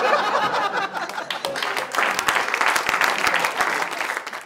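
Studio audience applauding with laughter, the clapping growing denser about a second and a half in; it cuts off suddenly at the end.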